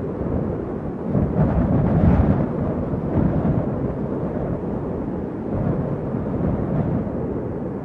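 Wind buffeting an outdoor microphone: a loud, continuous low rumble that swells and eases in gusts.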